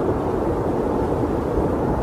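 Blizzard wind as a steady, low rushing noise with a deep rumble underneath, even throughout with no gusts or breaks.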